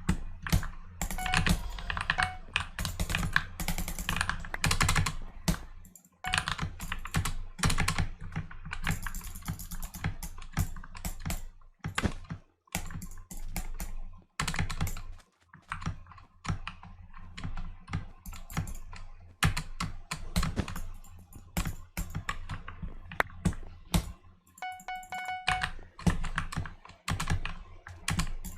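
Mechanical keyboard with lubed switches, switch films, greased stabilizers and added foam, keys pressed rapidly and irregularly in bursts during gaming, many clacks a second. About 25 s in, a short pitched game chime sounds over the typing.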